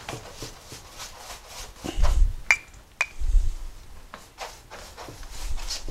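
A paintbrush rubbing grease and oil across the smoker's sheet-metal inner door, in repeated quick strokes, to give it a seasoning coat. There are a couple of sharper clicks and two low bumps between about two and three and a half seconds in.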